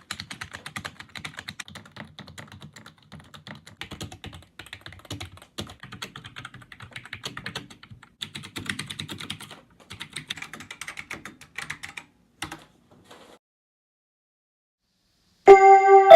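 Typing on a Matias Tactile Pro mechanical keyboard with Alps SKBM gray switches: a dense clatter of keystrokes in bursts with short gaps, ending with a single keystroke about twelve and a half seconds in. After a few seconds of silence, a loud electric piano chord starts near the end.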